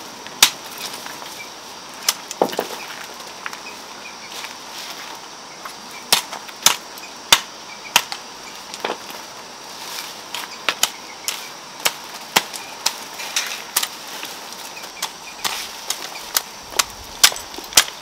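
Sharp, irregular snaps and clicks, about one a second, as plant stems are broken off by hand while working through the garden foliage.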